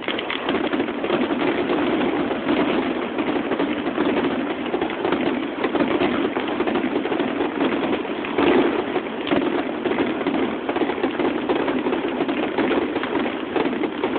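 Fireworks finale: many shells and fountains going off at once, a continuous rapid crackling and popping with a louder surge about eight and a half seconds in.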